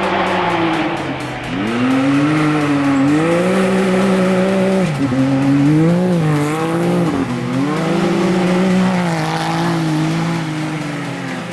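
Rally-raid competition vehicle's engine revving hard, its pitch climbing and then dropping sharply several times as the driver shifts gear or lifts off, before settling lower near the end.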